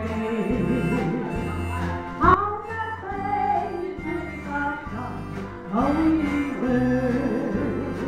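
Live old-time country gospel music: an elderly woman singing with a wide, wobbling vibrato, backed by electric guitars with steady bass notes underneath.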